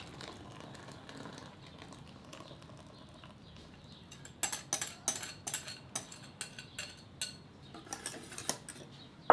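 A kitchen utensil tapping and scraping against a saucepan and mixing bowl as a lemon curd mixture is transferred. There are irregular clinks, two or three a second, starting about four seconds in.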